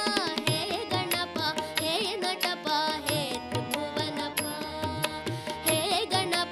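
Carnatic-style devotional music: gliding melodic lines over a steady hand-drum beat.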